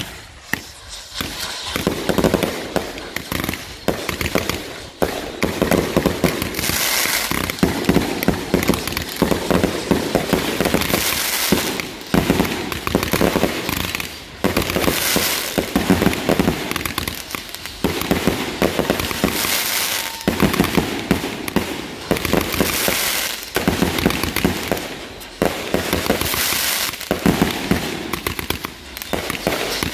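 Several consumer fireworks going off together: a spark fountain at first, then aerial shots bursting overhead. Rapid crackling runs throughout, with louder bursts every few seconds.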